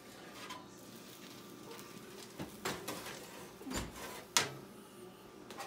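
A few knocks and clanks of a metal baking pan and wire rack being lifted out of an oven and set down on the stovetop, the loudest about four and a half seconds in.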